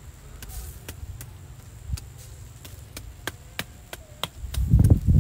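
Charcoal fire crackling under skewered whole chickens: sharp, irregular pops about once or twice a second. A louder rumble comes in near the end.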